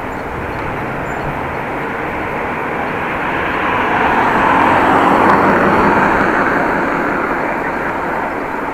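Road and wind noise while riding a bicycle, with a passing vehicle swelling to its loudest about five seconds in and then fading. No squeal from the back wheel stands out.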